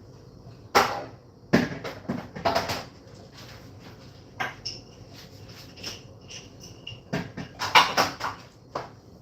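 Several sharp knocks and clattering bangs: one about a second in, two more over the next two seconds, and a busier cluster near the end. Faint high squeaks or chirps come in between.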